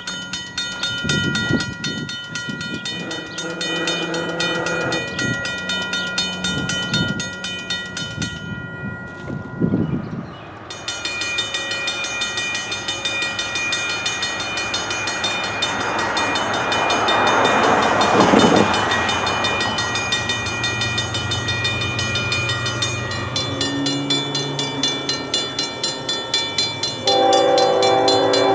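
Safetran mechanical railroad crossing bells ringing, the hammer striking the gong in a fast, even rhythm. A train passes partway through, a rush of noise that builds and fades under the bell.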